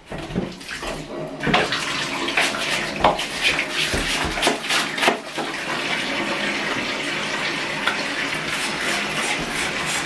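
Water running into a bathtub from the tap. There is uneven splashing with knocks for the first few seconds, then a steady rush.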